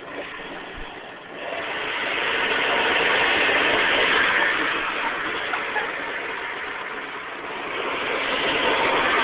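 Hoover Convertible U4007 upright vacuum cleaner switched on: its motor and fan wind up over the first couple of seconds, then run steadily with a loud rush of air, easing a little midway and rising again near the end.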